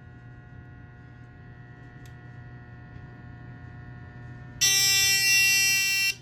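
Fire alarm horn sounding one loud, buzzy steady tone for about a second and a half, starting suddenly near the end and cutting off sharply.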